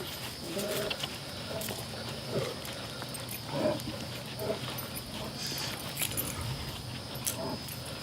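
A liger giving short, repeated grunting calls, about one a second, as it walks.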